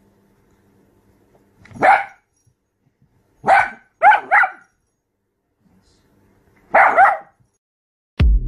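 A small dachshund barking: five short, high-pitched barks, one, then another, then a quick pair, then one more, with silence between them.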